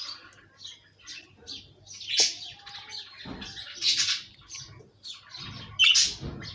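Budgerigars chirping and chattering in high-pitched calls, loudest about two, four and six seconds in, with a few low thumps.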